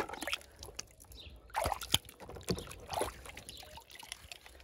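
Water sloshing and dripping as a hand rummages among die-cast toy cars in a plastic tub of water, with a few small sharp clicks.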